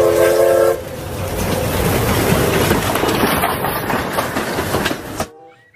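Steam locomotive's whistle sounding a short chord of several tones in the first second. Then the steady noise of the train's coaches running past close by, which cuts off suddenly near the end.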